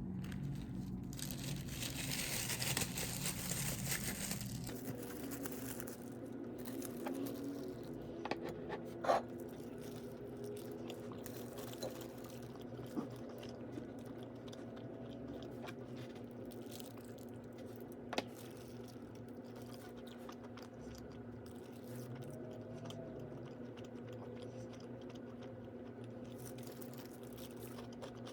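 A person eating, with crunching and chewing over a steady low hum; a hiss in the first few seconds and a few sharp clicks further on.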